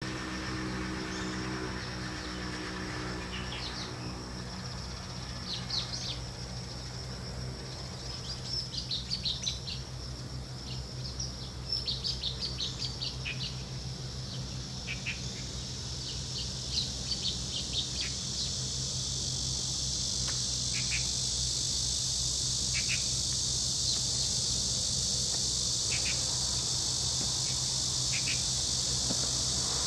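Birds chirping in short scattered calls, then from about halfway through a steady high insect buzz sets in and carries on. A steady low hum runs underneath throughout.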